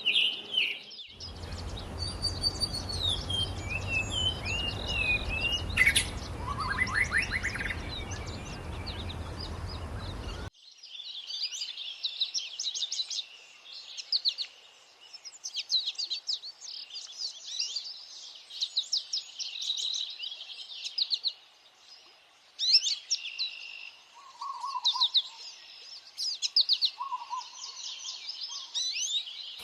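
Songbirds singing in a dawn chorus. For the first ten seconds a low wind rumble lies under scattered whistles and a trill. After a sudden cut, a busy stretch of rapid high chirps and twitters follows, with a few lower notes near the end.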